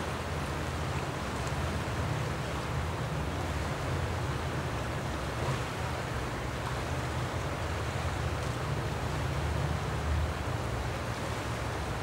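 River water flowing: a steady, unbroken rush with a deep rumble underneath.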